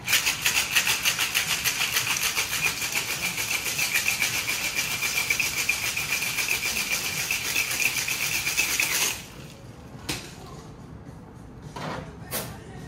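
Ice rattling in a metal two-tin Boston cocktail shaker shaken hard, a fast, even rattle that stops suddenly about nine seconds in. A couple of light knocks follow.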